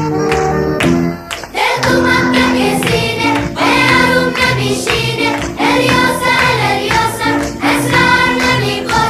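Background music: a short instrumental phrase, then singing voices from about two seconds in, over a steady beat.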